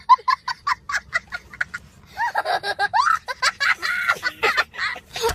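A person laughing: a quick string of short, high-pitched 'ha' bursts for about the first two seconds, then longer laughing sounds that waver up and down in pitch.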